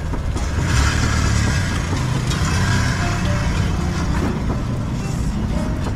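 Wind buffeting the microphone, a heavy uneven rumble over outdoor street noise, with background music.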